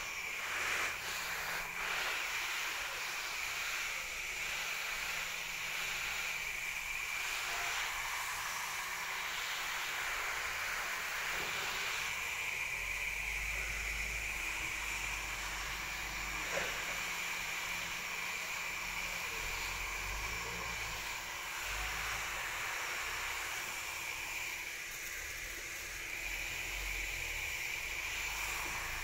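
Garden hose spray nozzle showering water onto leafy plants: a steady hiss of spray falling on the foliage.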